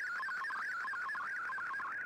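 MFSK digital picture transmission received over shortwave on an Icom IC-R8600: a steady warbling tone stepping rapidly up and down in pitch as the image data comes in.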